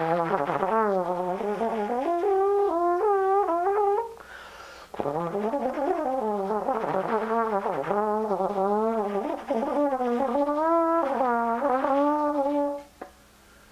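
Solo trombone playing freely improvised phrases with a wavering, bending pitch. A short pause comes about four seconds in, and the playing stops shortly before the end.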